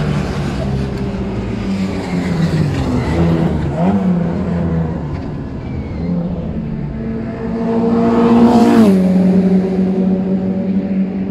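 Racing car engines passing on a street circuit, among them a classic Mini, revving and changing pitch as they go through. One car passes close about nine seconds in; it is the loudest, and its pitch drops sharply as it goes by.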